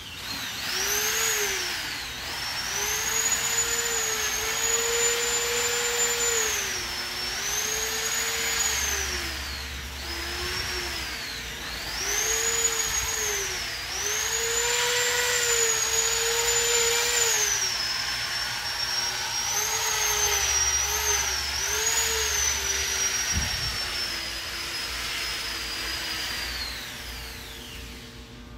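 A steady machine whine over a rushing hiss, its pitch gliding up, holding and sinking back every few seconds.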